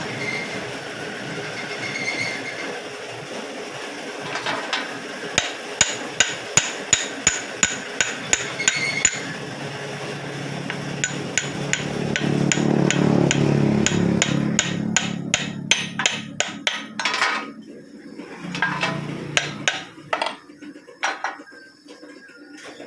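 Hammer blows on metal: a steady run of sharp strikes about three a second, a low rumble swelling in the middle, then a quicker flurry of blows and a few scattered ones near the end.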